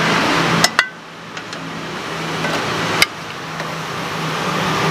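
Small metal crepe pans and a spatula knocking on a steel gas stove: two sharp knocks just under a second in and another about three seconds in, over a steady background rush with a low hum.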